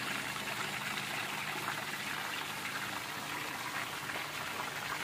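Hot oil sizzling and bubbling steadily around a whole giant gourami deep-frying in a wok.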